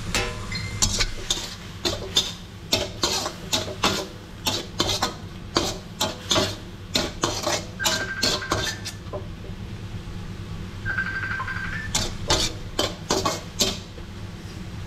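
Spatula scraping and knocking against a wok while stir-frying instant noodles, in quick strokes of two or three a second. The strokes pause for a few seconds after about nine seconds, then start again.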